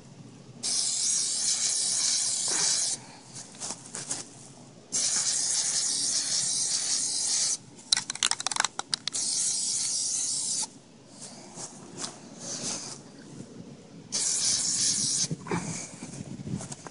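Plasti Dip aerosol spray can spraying in four long hissing bursts of about two to three seconds each, with a short stretch of quick clicks and sputters in the middle. It is laying on a second light coat of rubber coating.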